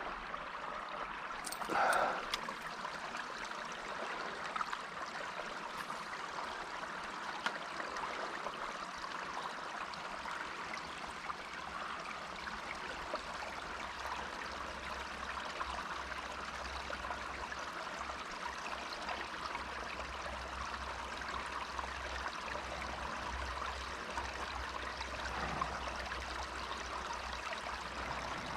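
Creek water flowing steadily with a trickling rush, and a brief louder noise about two seconds in.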